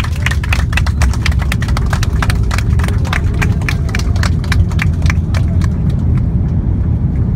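Airbus A330-200 rolling out on the runway after touchdown, heard inside the cabin: a loud, steady deep rumble with a rapid run of clicks and knocks that thins out and stops about six seconds in as the aircraft slows.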